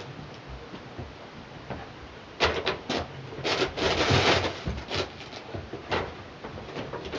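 A puppy moving about among wooden and fabric obstacles: a run of sharp clicks and knocks, then a scraping rustle lasting about a second, with a few more knocks afterwards.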